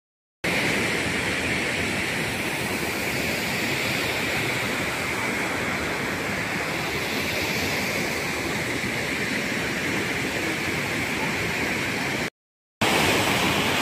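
Waterfall rushing steadily, broken by two brief dropouts to silence, one right at the start and one near the end.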